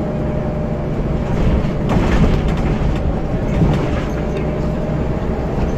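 Scania L94UB single-deck bus, its rear-mounted nine-litre five-cylinder diesel running steadily as the bus drives, heard from inside the saloon. A louder rushing noise comes about two seconds in.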